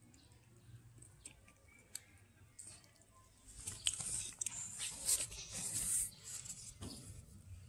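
A cat chewing fried fish with bones, crisp crunching bites that come thick and loud from about three and a half seconds in, then ease off near the end.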